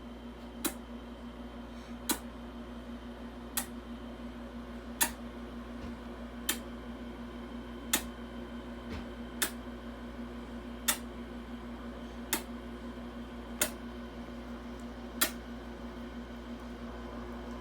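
A sharp click repeated at an even pace, about one every second and a half, eleven in all, over a steady electrical hum.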